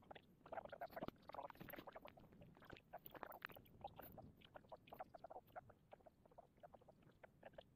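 Faint, irregular rustling and crinkling of clothing and gear being handled as a person puts on a jacket, a run of small crackles and clicks.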